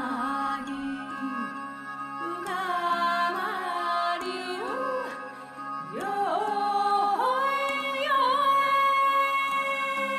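Background music: a melody of long held notes with sliding ornaments over a steady drone.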